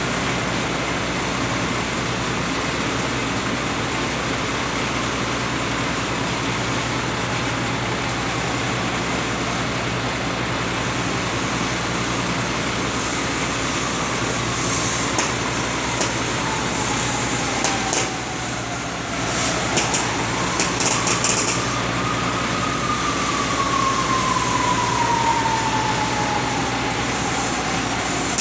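Steady hiss and hum of steel being cut with an oxy-fuel cutting torch on an elevated rail structure, over a steady machine drone. A whine glides down in pitch, rises, then falls again through the second half, and a quick run of sharp clicks comes around the middle.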